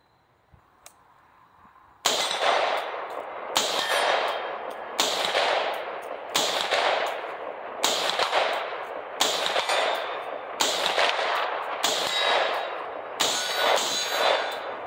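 Palmetto State Armory PA-10 semi-automatic .308 rifle firing a ten-round magazine, about one shot every second and a half after a short pause. Each shot is followed by the clang of a steel target being hit.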